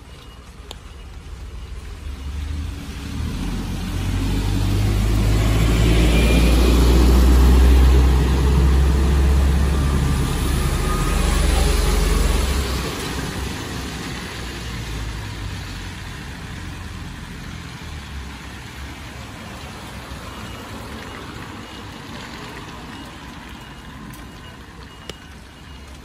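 A small shuttle minibus drives past close by and on up a wet street. Its engine rumble and the hiss of tyres on wet asphalt build over a few seconds, stay loud for several seconds, then fade as it moves away.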